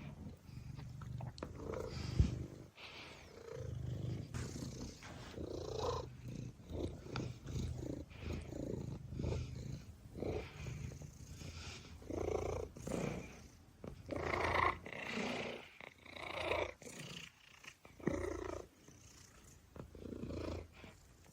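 A sleeping domestic cat purring with a low rumble, with breathy snores on its breaths. A single sharp click about two seconds in.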